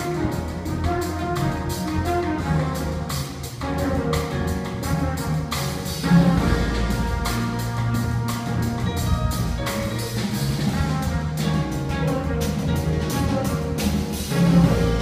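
Live jazz band playing: two trumpets over piano, electric guitar, electric bass and drum kit, with steady drum and cymbal strokes. A heavier accent comes about six seconds in.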